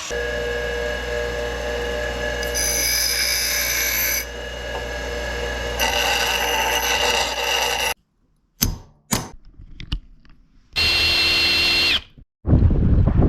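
A power tool running with a steady whine, in several short clips cut together so that the pitch changes abruptly. After a few sharp knocks, a last burst ends with the motor winding down, then wind buffets the microphone.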